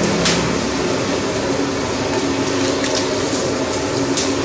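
A hand squelching chicken pieces through thick, wet masala marinade in a large aluminium pot, with several short sharp wet clicks. A steady hum runs underneath.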